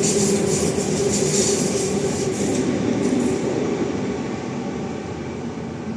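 Two Sydney electric trains, a Mariyung and a Waratah, running side by side past the platform, with steady motor hum and wheel-on-rail noise. The hiss of the wheels drops away about three and a half seconds in, and the sound fades as the trains draw away.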